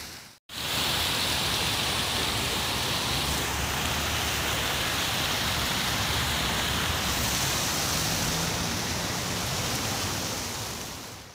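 Fountain jets splashing into a pool: a steady, even rush of water that starts abruptly about half a second in and fades near the end.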